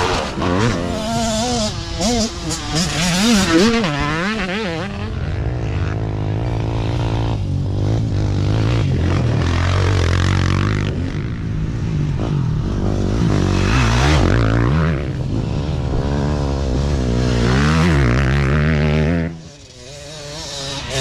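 Dirt bike engines revving hard as riders pass close by one after another, the pitch rising and falling with the throttle. The sound drops briefly near the end, then another bike comes in.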